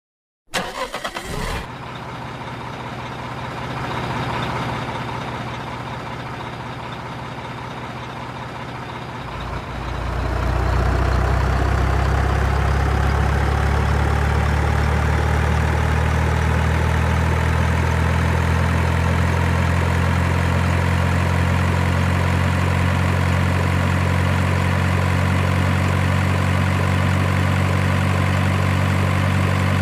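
Diesel truck engine sound, the kind an RC truck's sound unit plays: a lighter running sound at first, then about ten seconds in a steady deep idle sets in and holds.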